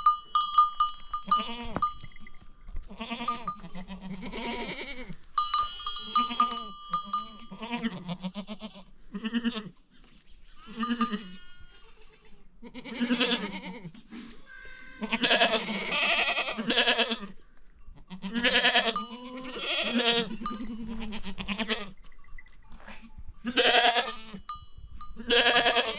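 Goats bleating over and over in a series of separate calls, with a metal livestock bell ringing near the start and again about six seconds in.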